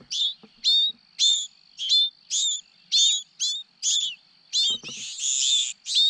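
Nestling songbirds begging for food: a string of short, sharp, down-slurred high calls about two a second, running into a longer overlapping burst near the end.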